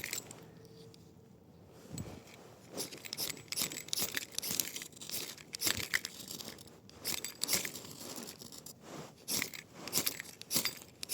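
Steel striker scraped again and again down a ferrocerium rod to throw sparks onto birch bark and wood shavings, lighting tinder. After a quiet first two seconds, the short, rasping strokes come in quick, irregular runs.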